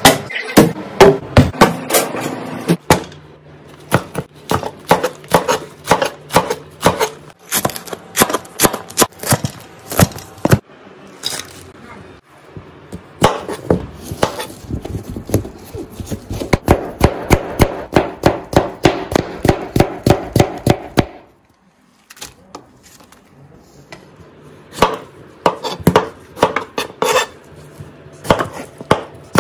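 Kitchen knife chopping cucumber and tomato on a plastic cutting board: sharp knocks of the blade hitting the board, a few a second, in runs with short pauses and a brief silent gap about three quarters of the way through.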